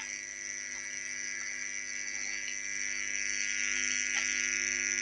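A steady hum made of several constant tones, with a high insect drone above it, slowly growing a little louder.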